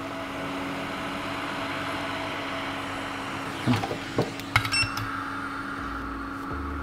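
Hot-air rework gun blowing a steady hum and hiss while reflowing a BGA chip set in flux. Several sharp clicks of tools come a little past halfway.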